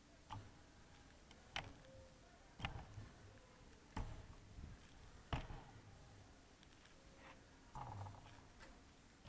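Faint, isolated clicks and knocks, roughly one every second or so, with a short low hum near the end; no steady motor running.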